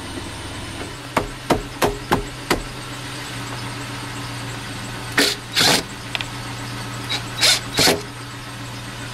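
A Ridgid cordless driver runs in two pairs of short bursts, driving screws into a truck's door sill trim plate. Before that come several sharp clicks, and a steady low hum runs underneath.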